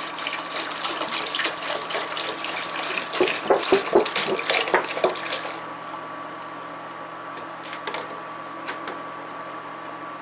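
Milk pouring in a thick stream into a large stainless steel stockpot, splashing onto the milk already in it, with a run of short pitched gulps from the carton in the middle. The pour tapers off and stops about five and a half seconds in.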